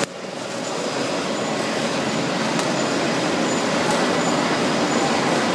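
Holographic film embossing machine running: a steady, even mechanical noise with no change in speed.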